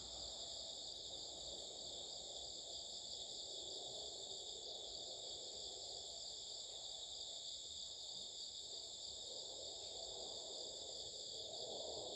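A chorus of insects singing continuously, several at different high pitches layered together, with a faint pulsing trill among them. A low, faint hum of background noise sits underneath.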